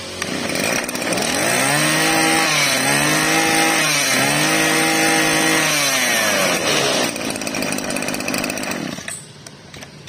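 Small two-stroke brush-cutter engine, a 20 cc Maruyama with a 30 mm bore, revved up and back down three times in a row. It then runs rougher and drops away about nine seconds in.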